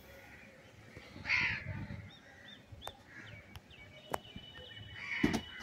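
A crow cawing twice, one harsh call about a second in and another near the end, with a few faint short chirps of small birds in between.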